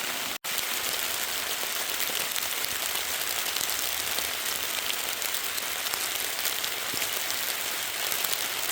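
Sleet falling steadily: a dense hiss of small ice pellets ticking on surfaces. The sound drops out for an instant about half a second in, then the same hiss carries on.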